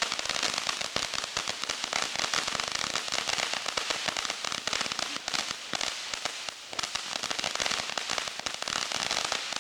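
Small consumer ground firework crackling: a dense, rapid, continuous patter of tiny pops for about nine and a half seconds, which stops abruptly at the end.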